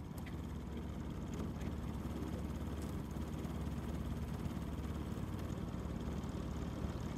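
Small outboard motor idling, a steady low rumble, with a few faint ticks over it.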